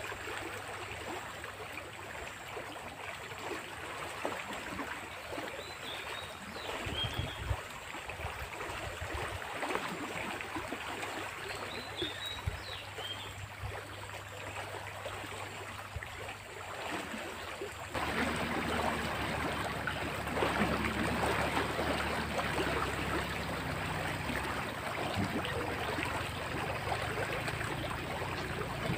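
Fast, swollen floodwater in a drain rushing steadily after heavy rain. It turns louder about two-thirds of the way through.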